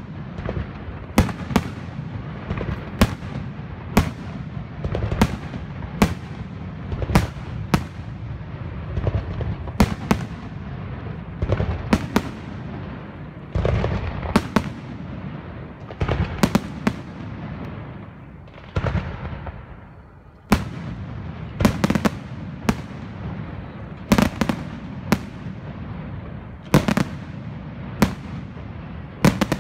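Aerial fireworks display: sharp bangs of bursting shells about once a second, over a constant rumble and crackle. The bangs ease off briefly about two thirds of the way through, then pick up again.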